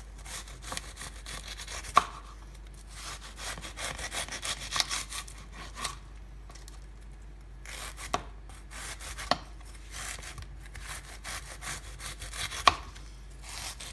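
Serrated bread knife sawing thin shreds off a head of cabbage on a wooden cutting board: quick rasping strokes, with a few sharp knocks standing out.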